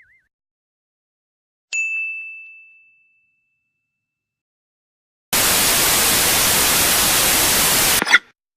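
Sound-effect clips in sequence. A single bell-like ding rings out and fades over about a second. After a pause comes nearly three seconds of loud TV-style static hiss that cuts off suddenly, followed by a brief sharp high sound.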